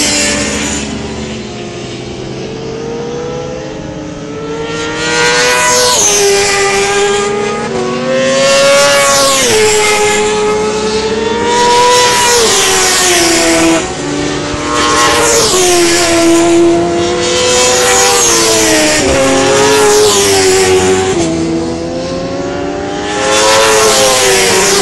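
Racing motorcycles at full throttle passing one after another, their engines revving up and shifting down, the pitch rising and falling. The sound is quieter for the first few seconds, then comes in repeated loud passes.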